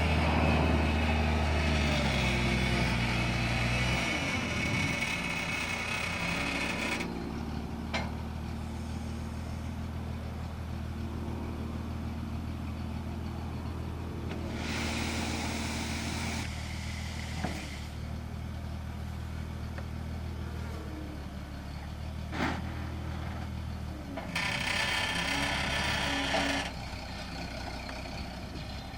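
An engine running steadily, dropping in pitch twice early on. There are two bursts of hissing noise, one about halfway through and one near the end, and a few sharp clicks.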